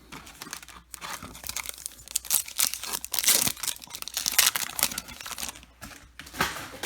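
Crinkling and tearing of a foil baseball card pack wrapper as it is torn open and crumpled by hand, in irregular crackly bursts that peak around the middle.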